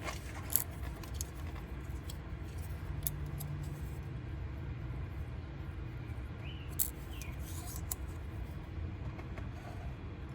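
Light metallic clicks and scraping of small steel dowel pins being fiddled by hand into the holes of a crankshaft pulley, with two sharper clicks, over a steady low background rumble.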